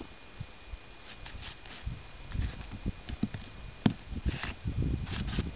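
Gusty wind buffeting the microphone in irregular low rumbles, with scattered knocks and one sharp click about four seconds in.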